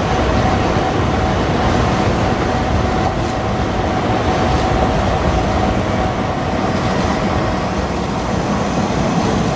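JR Kyushu KiHa 125 diesel railcar set running slowly into a station platform: a steady rumble of its engine and wheels on the rails.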